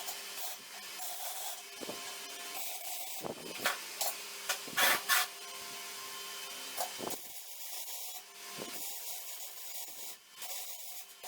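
Rubbing and scraping, with a handful of sharp knocks clustered in the middle and a faint steady hum that stops about seven seconds in.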